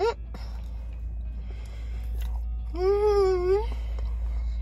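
A woman's voice makes a drawn-out, wavering hummed "mmm" about three seconds in, after a short rising vocal squeak at the start. Underneath runs the steady low drone of a moving car's cabin.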